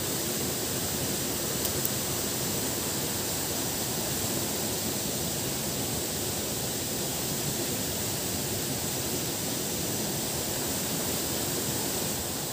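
Steady, even rushing noise with a faint high hiss above it and no distinct events.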